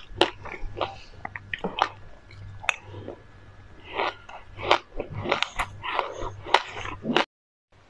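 Close-miked chewing of a mouthful of black sesame seeds: a string of sharp, crunchy crackles. The sound cuts off abruptly near the end.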